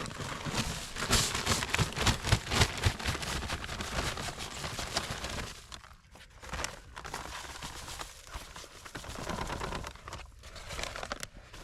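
Crinkling, scraping and crackling of a bag of dry ready-mix concrete being handled and emptied into a post hole, busiest in the first half and quieter and more broken after that.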